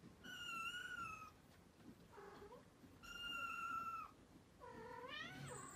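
Kitten mewing three times, each mew high-pitched and about a second long; the third rises and then falls in pitch.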